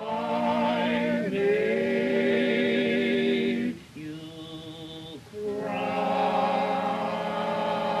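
Music with voices singing long held notes with vibrato, choir-like; it drops to a quieter, thinner passage about four seconds in and swells again a second or so later.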